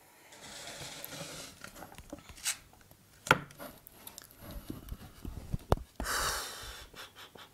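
Plastic pouch of runny condensed milk being squeezed and handled over a stack of pancakes: soft plastic crinkling with scattered light clicks and taps. A breathy exhale comes about six seconds in.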